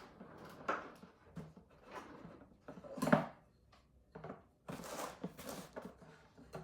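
A lamp being moved and adjusted on a desk: a series of irregular knocks, clicks and short scrapes, with one sharper knock about three seconds in and longer rustling scrapes around five seconds in.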